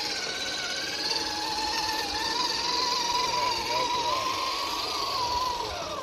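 Whine of an RC crawler truck's small electric motor and gearing under throttle, its pitch wavering slowly up and down as the truck creeps along.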